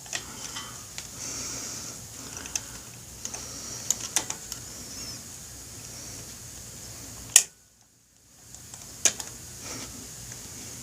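Scattered light metallic clicks and taps of a socket and extension being worked by hand on a motorcycle engine's tappet screen plug, with a sharper click about seven seconds in and the sound cutting out briefly just after it.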